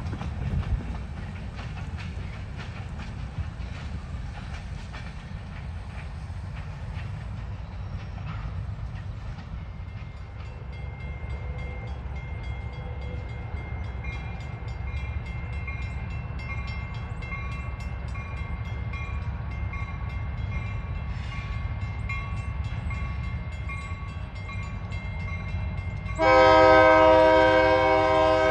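EMD SW1200 switcher locomotive's diesel engine running with a steady low rumble, with clanking over the first several seconds. About 26 seconds in, its Nathan K3LA chime horn sounds one loud, sustained blast.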